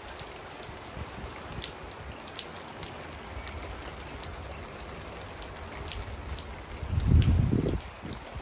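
Heavy rain falling steadily on a wet wooden deck and garden furniture: a constant hiss with many sharp drop ticks. A louder low rumble swells about seven seconds in.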